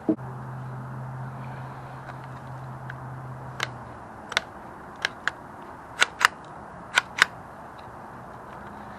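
About eight sharp snaps of airsoft guns firing, several in quick pairs, starting three and a half seconds in. A low steady hum runs under the first few seconds.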